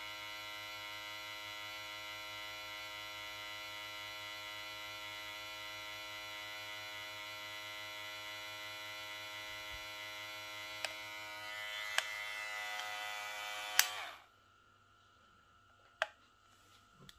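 All-metal hair clipper motor and blade running with a steady hum at about 6,200 RPM. A few clicks sound over it in the last seconds before it switches off abruptly about 14 seconds in, followed by a single click.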